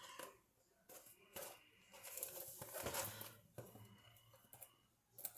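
Faint, scattered clicks and crinkles of scissors and plastic wrap as a trading-card blaster box is cut open.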